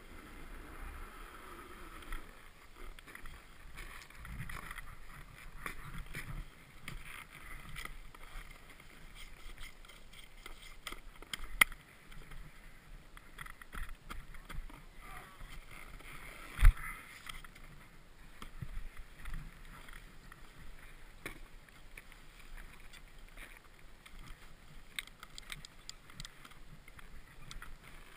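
Snowboard sliding and scraping over packed, tracked snow with a steady hiss, then coming to a stop. Two sharp knocks stand out, the louder about two-thirds of the way through, and small clicks near the end come from a binding strap being worked by gloved hands.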